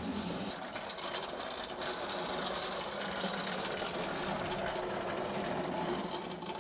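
Wheel Horse electric lawn tractor's drive motor running steadily with a humming whine as the tractor drives along under its own power.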